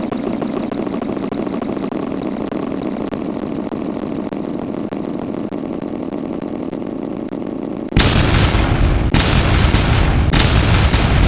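Heavily degraded, distorted audio: a dense, rapidly flickering buzz that about eight seconds in jumps to a much louder, harsh crackling noise with heavy bass.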